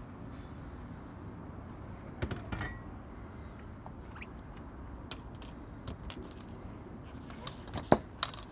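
Scattered sharp metallic clicks and knocks, a couple about two seconds in and the loudest near the end, over a steady low rumble.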